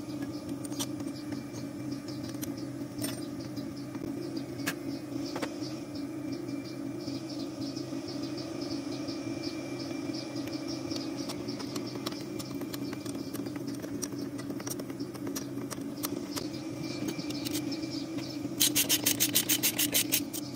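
Truck diesel engine idling steadily. Near the end comes a rapid run of ratchet-wrench clicks, about nine a second, as a bolt on the gear-shift linkage is turned.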